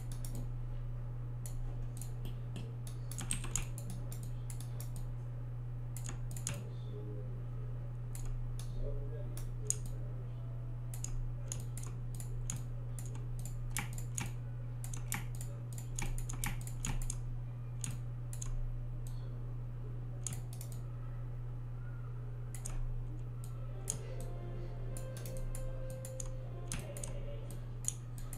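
Computer mouse and keyboard clicking irregularly, sometimes several clicks in quick succession, over a steady low hum.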